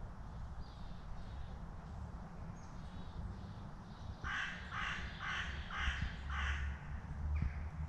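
A crow cawing five times in quick succession, about two caws a second, midway through, over a low rumble.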